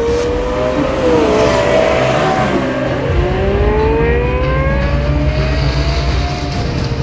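Lexus LFA's V10 engine accelerating hard: its pitch climbs, falls back at a gear change about three seconds in, then climbs steadily again until another drop near the end.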